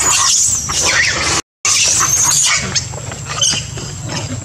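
Long-tailed macaques screaming shrilly in distress during an attack on a young monkey. The cries are loud and wavering, break off abruptly about one and a half seconds in, resume, then drop to quieter, broken squeals after about two and a half seconds.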